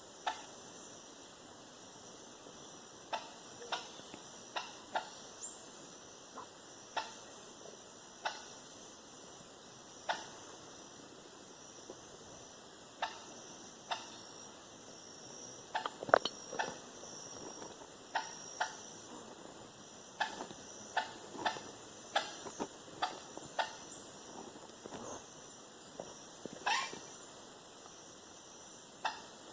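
Rainforest ambience: a steady, high-pitched insect drone with a fainter pulsing chirr beneath it. Sharp clicks break in at irregular intervals, more of them in the second half.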